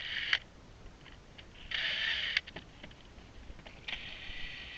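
Cordless drill spinning a cut-off Allen wrench to back out Allen bolts: a short whine at the start, another of under a second about two seconds in, and a steady run starting near the end, with small clicks between.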